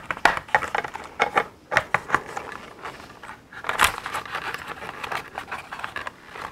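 Plastic parts of a Hasbro Tatooine Skiff toy model clicking, tapping and rattling as they are handled and fitted, with a louder knock about four seconds in.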